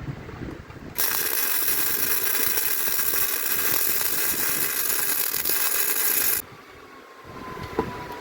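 Welder laying a weld bead along a cracked frame engine mount: a loud, steady hiss that starts sharply about a second in, runs for about five seconds and cuts off suddenly. A single click near the end.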